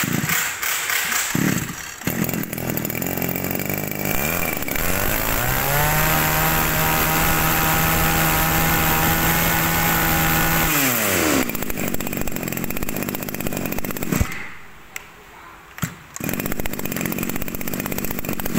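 Small 34 cc Nativo brush-cutter engine pull-started, catching about two seconds in. It is revved up to high speed and held there for about five seconds, drops back to idle, stops, then runs again at idle near the end.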